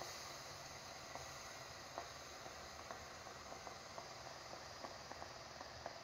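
Handheld garment steamer running: a faint steady hiss with small irregular pops and crackles, which come more often toward the end.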